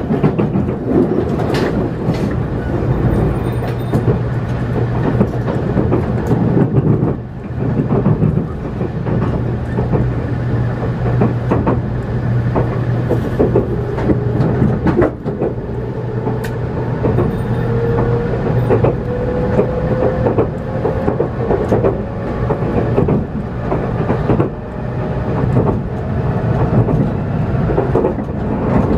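Inside a JR Kyushu 783 series limited-express electric train under way: a steady rumble of wheels on rail with a low hum and irregular clicks over rail joints. Through the second half a faint whine slowly rises in pitch.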